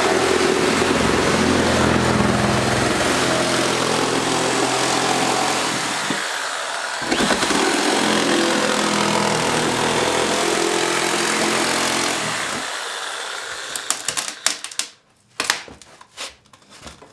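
Corded electric power saw cutting through plywood subfloor, running steadily with a brief stop and restart partway through. It winds down about two-thirds of the way in, followed by a few light knocks.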